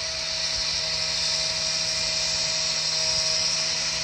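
Milwaukee industrial chainsaw cutting into concrete: a steady high-pitched whine over a grinding hiss.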